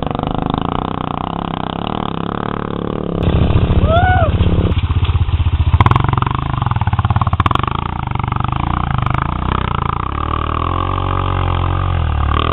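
Off-road dirt bike engine labouring up a steep hill climb under load. It gets louder about three seconds in, then rises and falls in pitch as the rider works the throttle and clutch.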